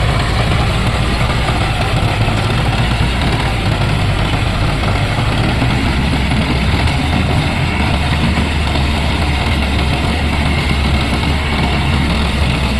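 Tractor engine running steadily at idle, with a constant low rumble.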